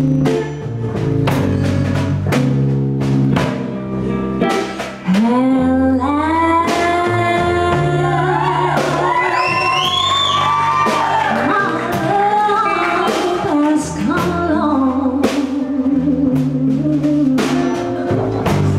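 Live band of archtop guitar, upright double bass and drum kit playing with a steady beat; about five seconds in, a woman's singing voice comes in and carries on over the band.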